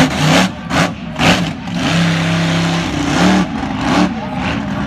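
Monster truck engine revving, its pitch rising and falling several times, with a few loud rushes of noise in the first second and a half.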